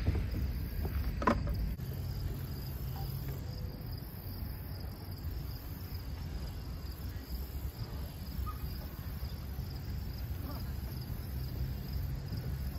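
A steady outdoor insect chorus, a constant high buzz, over a low rumble. There is a brief sharp knock about a second in.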